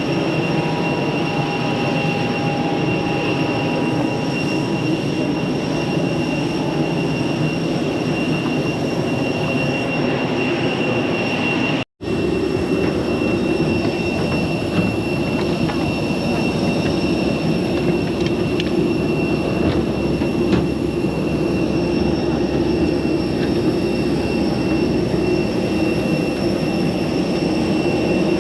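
Steady running noise inside a vehicle: an even rumble with a constant high whine. It breaks off for an instant about twelve seconds in, then carries on unchanged.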